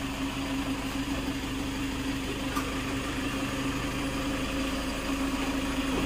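A vehicle's engine running at a steady, unchanging speed, a constant low hum.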